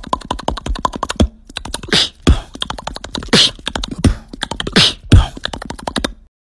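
Close-miked beatboxing. It opens with a fast run of mouth clicks, then after a short pause moves into a beat of deep, falling kick drums and sharp snares. It stops abruptly about six seconds in.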